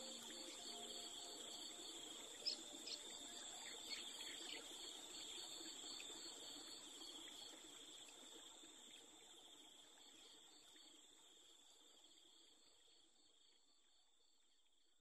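Crickets trilling steadily in a nature-sound background, with soft low music underneath that dies away in the first half and a few brief sharp chirps a few seconds in; the whole soundscape slowly fades out.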